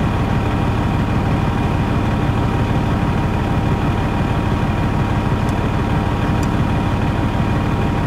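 Diesel truck engine idling steadily: an even low rumble with a constant hum, heard from inside a vehicle through its glass.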